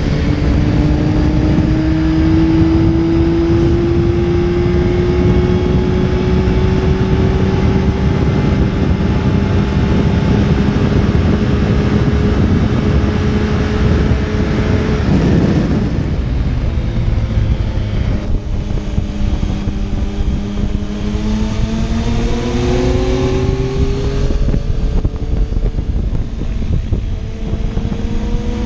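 Motorcycle engine under way with wind rush on the microphone: its pitch climbs slowly and steadily for about fifteen seconds, drops off, then rises again in several shorter climbs as the bike accelerates through the gears.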